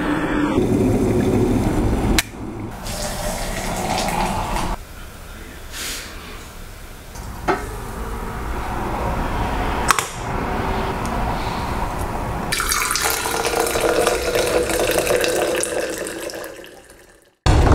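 Coffee being made in short cuts: an electric kettle heating water, a French press with a few light clinks as its plunger is worked, and near the end a few seconds of coffee pouring into a stainless steel tumbler, fading out.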